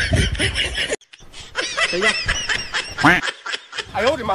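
Laughter in quick repeated bursts, with a short break about a second in.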